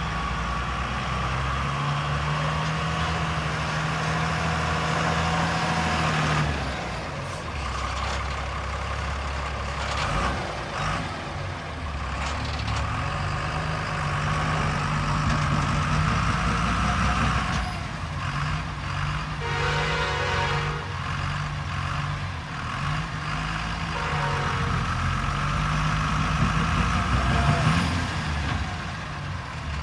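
JCB 3DX backhoe loader's diesel engine working, its pitch rising and falling as the throttle and hydraulic load change while it digs and loads soil. Two brief higher tones sound about twenty and twenty-four seconds in.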